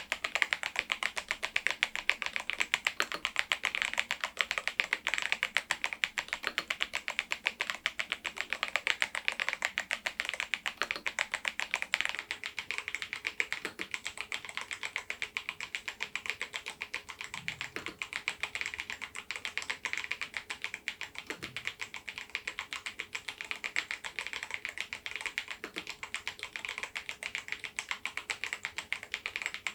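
Machenike K500 PRO mechanical keyboard with its stock switches and keycaps being typed on continuously: a steady, dense clatter of keystrokes, a little softer after the first twelve seconds or so.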